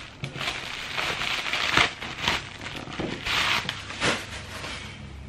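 Rustling and crinkling of camera packaging and wrapping being handled as a new DSLR is unwrapped, in irregular bursts.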